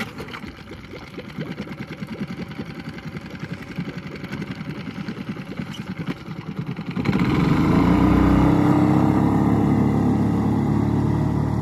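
Honda 5 hp four-stroke outboard motor pull-started, catching at once and running at idle with a fast, even putter. About seven seconds in it is throttled up and runs louder, rising in pitch as the boat gets under way.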